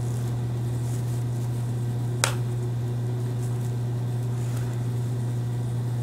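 A steady low hum with one sharp click about two seconds in, from a small precision screwdriver driving screws inside a MacBook.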